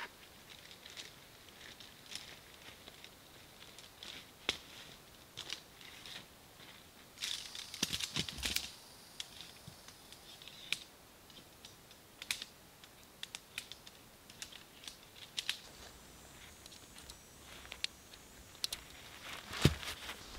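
Segmented tent poles being assembled by hand: scattered light clicks and rattles of the pole sections knocking and snapping together, with a denser clatter about eight seconds in and a sharper knock near the end.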